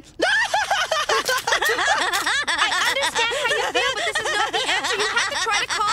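Two women laughing hysterically, their voices overlapping in an unbroken stream of exaggerated laughter.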